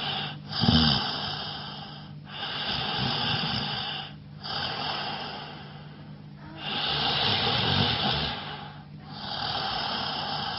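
A man snoring: a noisy breath about every two seconds, with a low snort about a second in.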